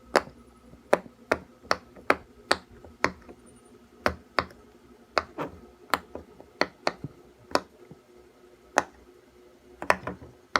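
Bubbles of a round silicone push-pop fidget toy being pressed one after another: a string of sharp pops, roughly two a second at an uneven pace, with a short pause about eight seconds in.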